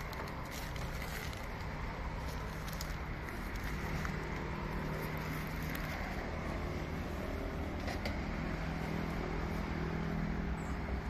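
A low, steady engine hum over street background noise, swelling and fading a little now and then.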